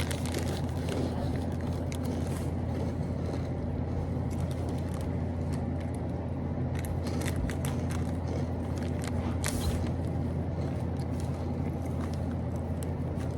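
A stuffed tortilla wrap being folded and wrapped by hand, with light rustling and short crinkles, over a steady low hum.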